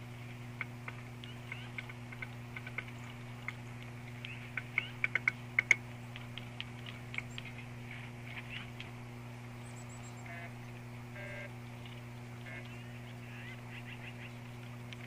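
Birds chirping, many short calls scattered through, with a quick run of sharp clicks about five seconds in, over a steady low hum.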